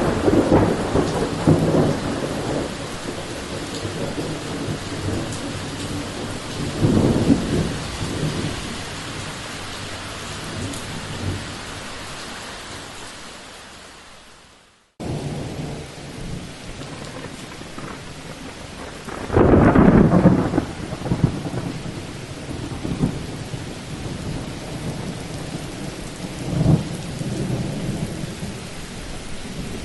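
Thunderstorm: thunder rumbling over steady rain. A loud peal at the start rolls away and a second rumble follows about seven seconds in, then the sound fades out about halfway through. The rain cuts back in suddenly, with a loud thunderclap some five seconds later and a shorter rumble near the end.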